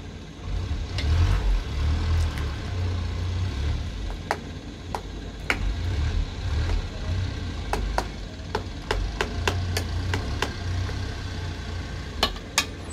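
Steady low roar of a gas burner under a steel karahi, with a metal ladle clicking and scraping against the pan as the chicken and tomatoes are stirred and mashed. The clicks come in a quicker run toward the end.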